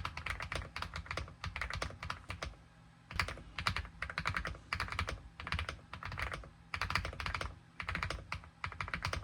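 Typing on an AULA F99 mechanical keyboard with pre-lubed linear switches: fast runs of keystrokes broken by short pauses.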